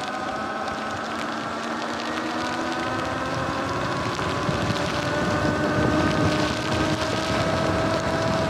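Sur-Ron electric dirt bike's motor whining steadily and rising slowly in pitch and loudness as it gathers speed, over the hiss of tyres on a wet road and wind on the microphone.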